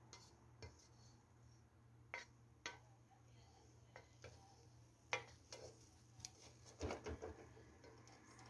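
Faint, scattered clicks and light knocks of a spoon against a metal cooking pot as cooked rice is stirred and fluffed, with a small cluster of knocks near the end, over a faint low hum.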